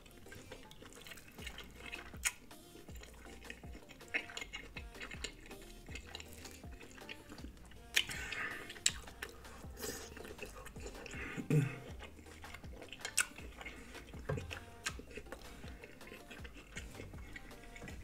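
Close-miked eating of butter-dipped lobster tail: scattered wet clicks, smacks and drips from chewing and from fingers in the butter sauce, with faint music underneath.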